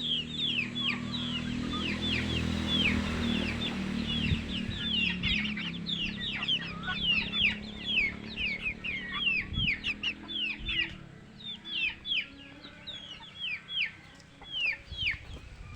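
A flock of young Aseel x native crossbred chickens peeping: many short, high, downward-sliding calls overlapping, several a second. A low rumble sits underneath and fades out about two-thirds of the way through.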